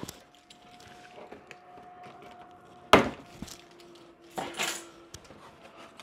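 A cardboard monitor box being handled on a desk: a sharp knock about three seconds in, then a short scraping rustle a little over a second later.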